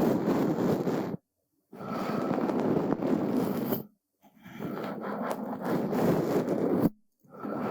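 Brush bristles sweeping over a surface in long, even strokes of about two and a half seconds each, separated by brief silences. One stroke ends about a second in, two full strokes follow, and another begins near the end.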